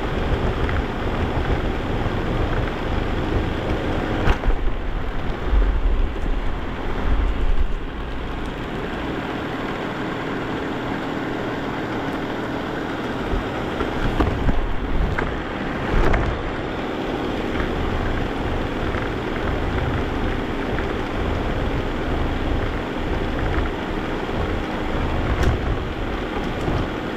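Vacuum cleaner running steadily, heard close up, with a faint motor hum under the rush of air. There are low bumps and knocks a few seconds in and again around the middle as it is pushed over the floor.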